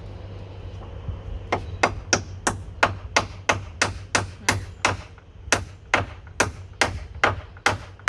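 Hammer blows on wood: about eighteen quick, even strikes at roughly three a second, starting about a second and a half in, with a short pause near the middle, over a steady low hum.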